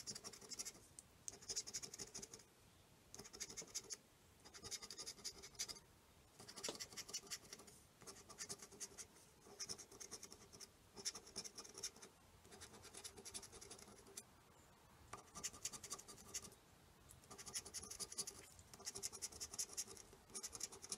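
Plastic scratcher token scraping the coating off a scratch-off lottery ticket, in spells of rapid scratching about a second long with short pauses between.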